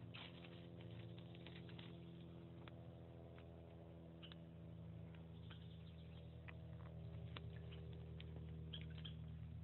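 Short, irregular scrapes and clicks of a steel striker drawn along a magnesium fire starter's spark rod, throwing sparks onto tinder to light a fire, over a steady low hum.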